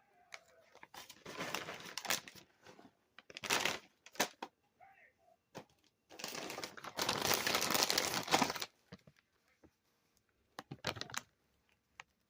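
Food packaging crinkling and rustling as it is handled, in four bursts, the longest lasting about two and a half seconds past the middle.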